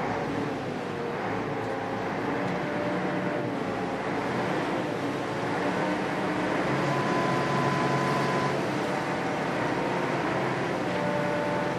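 Small car ferry's diesel engine running steadily as the boat comes in alongside its floating landing pontoon, growing a little louder past the middle of the approach.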